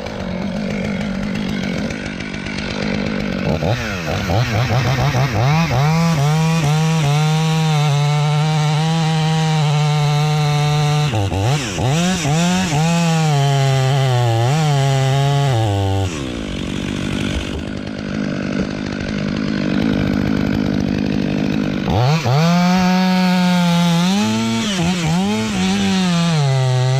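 Chainsaw idling, then revved up about four seconds in and held at full throttle through a cut, its pitch sagging and recovering as the chain loads in the wood. It drops back to idle partway through, then is revved through another cut near the end.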